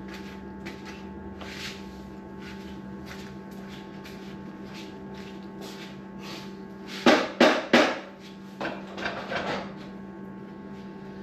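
Knocking and tapping while the Ford Model T engine is shifted into line on its front mount: light scattered taps, then three loud sharp knocks in quick succession a little past halfway, followed by a few softer ones, over a steady hum.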